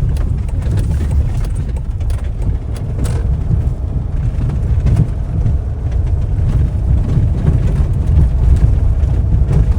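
Steady low rumble of a vehicle driving, its road and engine noise unbroken.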